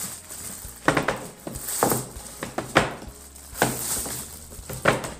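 Thin clear plastic bag crinkling and rustling in short irregular bursts, about five loud ones, as fried kibbeh are packed into it, over a low steady hum.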